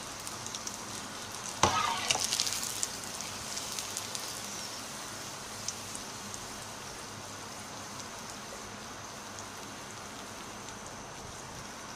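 Poori paratha deep-frying in hot oil in a metal wok: a steady sizzle with scattered crackles. A single knock comes a little under two seconds in, followed by about a second of louder crackling.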